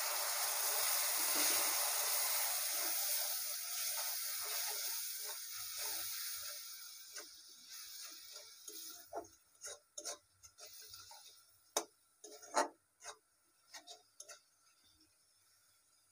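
Water splashed into hot oil with fried onions and spice paste in a wok sizzling loudly, dying away over about nine seconds. Then a metal spatula scraping and knocking against the wok several times as the masala is stirred.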